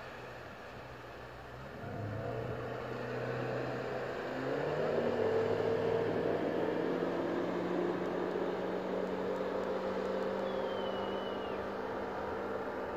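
Outboard motor of a small motorboat opening up: its pitch and loudness climb in two steps, about two and four and a half seconds in, then settle into a steady high drone as the boat planes away.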